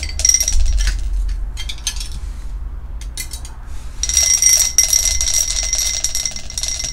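A ten-sided die shaken hard inside a drinking glass: a few clinks at first, then from about four seconds in a fast, continuous rattle with the glass ringing.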